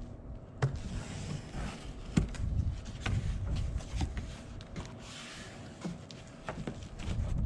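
A cardboard box being opened and its contents handled: scattered knocks and clicks with rustling of packaging about a second in and again about five seconds in. A low rumble from wind on the microphone runs underneath.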